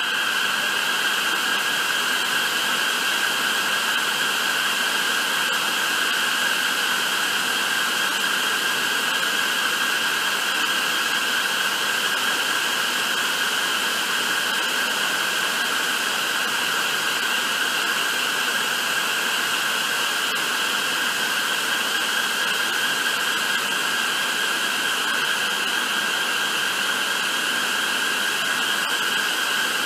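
Bank of ceiling-mounted SmokeCloak IPX25 security fog generators discharging jets of fog: a loud, steady, high-pitched hiss.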